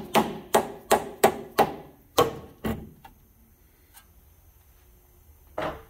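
A run of hammer blows, about three a second and each with a short ring, knocking the lower control arm clevis down into position; they stop about three seconds in, and one more knock comes near the end.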